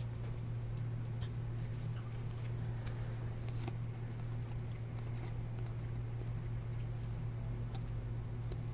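Faint ticks and slides of glossy Topps Chrome baseball cards being thumbed through one by one in the hands, over a steady low hum.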